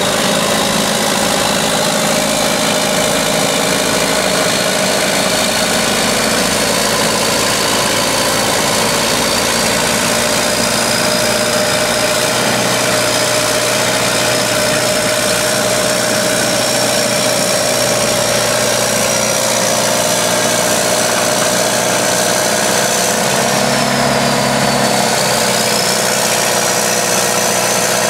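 Diesel engine of a 1967 Caterpillar 955K crawler loader running steadily, with a faint high whine that slowly rises in pitch and dips briefly about 24 seconds in.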